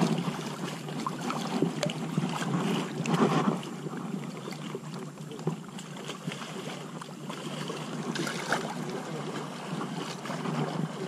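Shallow lake water sloshing and lapping with wind buffeting the microphone, louder near the start and again about three seconds in, with a few small clicks and knocks.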